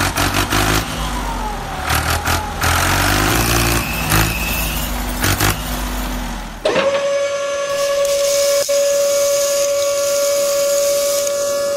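Background music for the first several seconds, then it cuts off and a small electric motor whines at one steady high pitch as the model tipper trailer's bed tilts up to dump its load.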